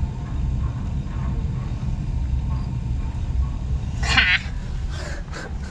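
A short, high, wavering animal call about four seconds in, with a fainter call about a second later, over a steady low rumble.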